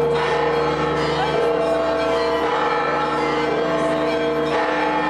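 Church bells pealing continuously, many overlapping ringing tones, over the chatter and shouts of a dense crowd.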